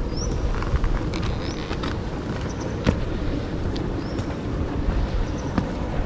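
Steady rushing hiss of volcanic fumaroles venting sulphurous steam, with wind rumbling on the microphone. A few short high chirps and faint clicks come through on top.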